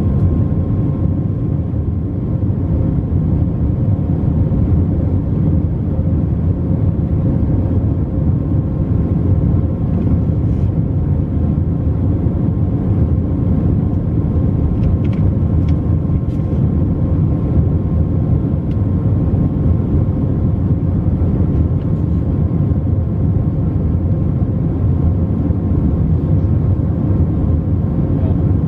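Steady cabin noise inside an Airbus A321 in flight: a loud, even rumble of the engines and airflow, with a faint steady hum running through it.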